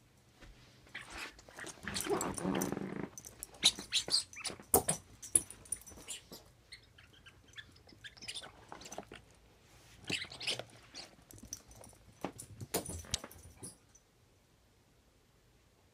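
A small puppy playing with a toy: a short growl about two seconds in, then scattered clicks and knocks as he mouths and pushes the toy around, in clusters, until it goes quiet near the end.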